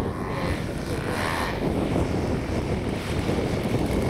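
Engines of two twin-engine radio-controlled scale model aircraft droning as they fly past low, with wind rumbling on the microphone.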